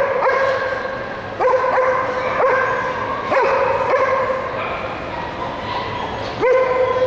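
A dog giving high yips about seven times, each drawn out into a held whine, with short gaps between.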